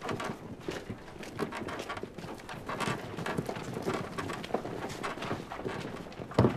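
Many quick, irregular footsteps and wooden knocks from a group of guards moving and handling wooden spear barricades, ending in a loud heavy thump.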